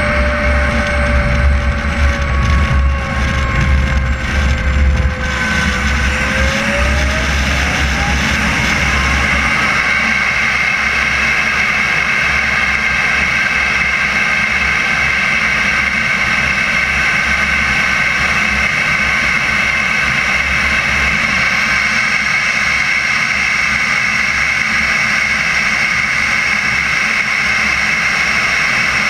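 CARF Viper RC model jet's turbine running steadily in flight, a high whine with air rushing past the airframe. One tone dips slowly, then climbs about six seconds in, and a heavy low rumble eases off after about nine seconds.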